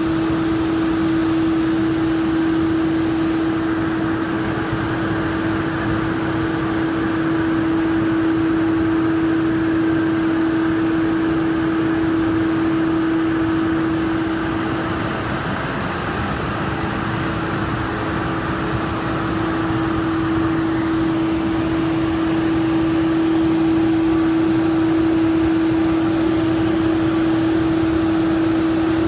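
Takano B201 slitter rewinder running steadily while slitting and rewinding PE-laminated paperboard cup stock: a continuous machine noise with a strong steady mid-pitched tone that weakens briefly about halfway through.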